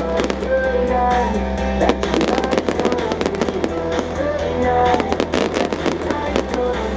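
Fireworks bursting and crackling in quick clusters over loud music with a melody and a steady bass line.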